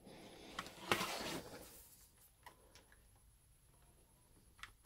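A small screwdriver scraping and prying along the seam of an HP 15 laptop's plastic bottom case. The rough scraping lasts about two seconds and is loudest about a second in; a few faint clicks follow.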